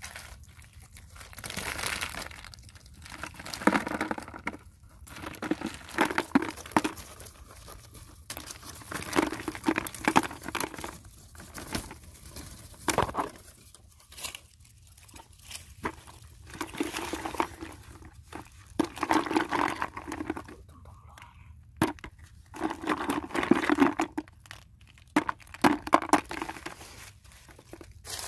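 Irregular rustling, crackling and crunching of dry plant stalks and leaves being handled and pulled by hand, in bursts that come and go every second or two with sharp snaps among them.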